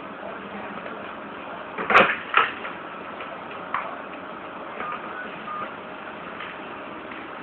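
Corded desk telephone handset lifted off its cradle with two sharp knocks about two seconds in, then a smaller click and a few short, faint beeps. A steady background hum runs throughout.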